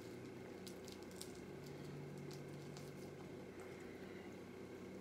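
Faint crackles and soft wet clicks of fried chicken being torn apart by hand and chewed, over a steady low hum.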